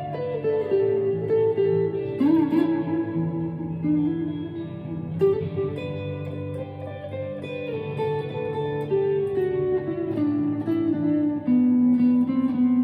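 Chapman ML3 Pro Traditional electric guitar with Seymour Duncan Hot tele pickups, played as slow ambient single-note lines whose notes ring into one another. About two seconds in there is a wavering bent note, and a long-held low note sounds near the end.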